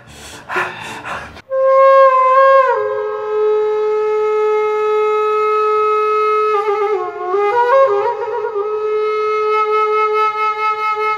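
A flute playing a slow melody of long held notes, coming in about a second and a half in. It steps down in pitch soon after, and there is a wavering run of notes around the middle before it settles on a long low note again.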